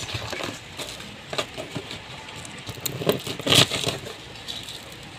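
Dried red chile pods crackling and rustling as they are torn open by hand and their seeds and veins pulled out: irregular dry crackles, with a few louder ones about three seconds in.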